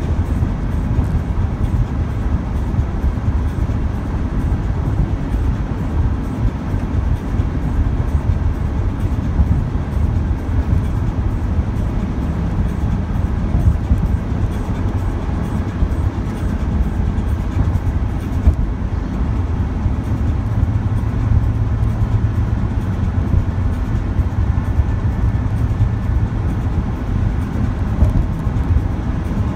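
Steady road and engine noise inside a vehicle's cabin at highway speed: a low, continuous rumble of tyres on the pavement, with a low hum joining in about two-thirds of the way through.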